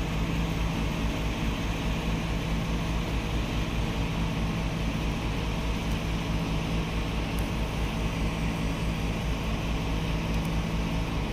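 Steady machine hum with one constant low tone over an even hiss, unchanging throughout.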